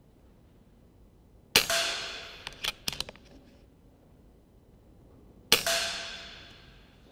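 Two shots from an FX Whisper PCP air rifle, about four seconds apart. Each is a sharp crack followed by about a second and a half of metallic ringing. A few light clicks come a second after the first shot.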